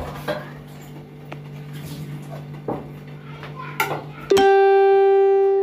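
Plates and cutlery clinking and clattering over a low steady hum. About four seconds in, a loud held musical note with many overtones starts suddenly, stays steady without fading, and cuts off abruptly.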